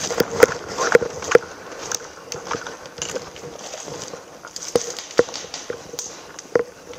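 Footsteps of a person moving through a forest over dry leaf litter and twigs, irregular knocks with rustling between them, quicker and louder in the first second and a half, then slower.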